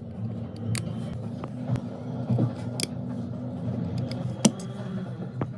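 Scattered sharp clicks and taps of small tools against a smartphone during a display repair, over a steady low hum. The loudest click comes about four seconds in.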